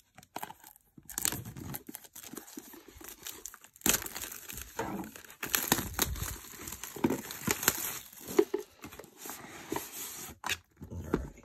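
Packaging crinkling and tearing as a Zendikar Rising Gift Bundle cardboard box is unwrapped and opened, with cardboard sliding and small taps. The rustling starts about a second in and stops shortly before the end.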